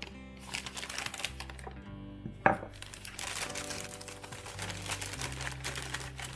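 Background music with a steady bass line, over the crinkling of a paper bag being handled. About two and a half seconds in, a ceramic plate is set down on a wooden table with a sharp clink that rings briefly.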